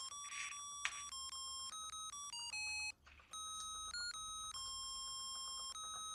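Simple electronic melody of plain beeping notes, one note at a time, from a cheap music chip, with a brief break about halfway through. A short rustle and a click come just under a second in.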